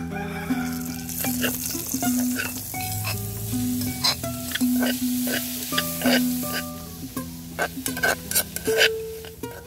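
Oil and garlic sizzling in a metal cooking pot as sliced anahaw palm buds are added and stirred, with a metal spoon repeatedly clinking and scraping against the pot. The sizzle is strongest in the first two thirds and fades toward the end.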